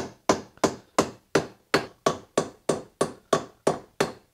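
Hammer driving nails into a wooden board, with steady, evenly spaced blows of about three a second that stop shortly before the end.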